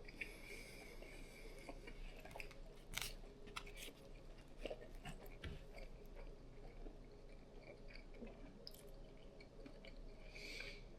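A person chewing a mouthful of chicken-thigh and cheese sandwich: faint, irregular wet mouth sounds with scattered small clicks.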